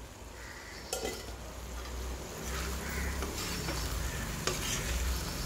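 A slotted metal spatula stirring a dry pea and potato fry in a metal kadai, scraping and clinking against the pan, while the food sizzles, its cooking water boiled off. A sharp clink comes about a second in.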